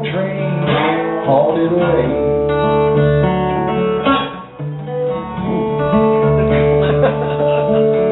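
Acoustic guitar played live, notes picked and strummed and left ringing into one another, with a brief dip in loudness about halfway through.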